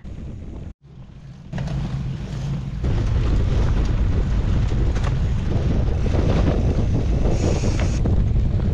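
Wind buffeting the microphone of a bike-mounted action camera over the rumble of gravel-bike tyres on a rough dirt track. It breaks off for a moment just under a second in, then grows louder in two steps and stays at a steady roar.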